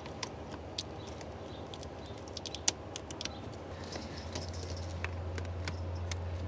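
Scattered light clicks and taps of plastic fuel and vapor lines knocking against hoses and wire loom as they are fished by hand through a truck's engine bay, over a low steady hum that grows a little louder in the second half.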